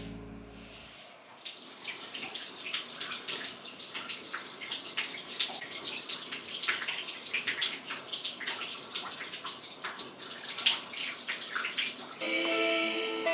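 Wet, lathered hair being worked by hand: a dense wet crackling and squishing, made of many small sharp wet clicks over a hiss. Music comes in near the end.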